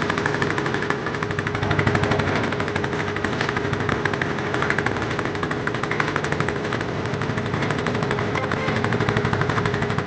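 A small fishing boat's engine running steadily under way, with a fast, even knocking beat.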